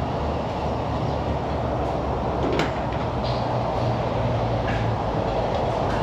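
A steady mechanical drone and hiss, like a machine running, with a few light clicks and knocks.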